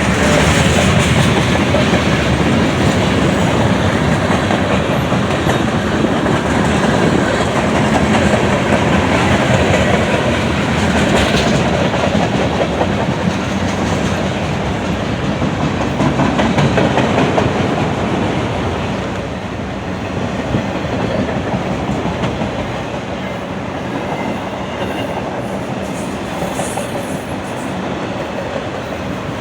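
Freight cars of a manifest train rolling past, a steady rumble and clatter of steel wheels on the rails, easing off slightly about two-thirds of the way through.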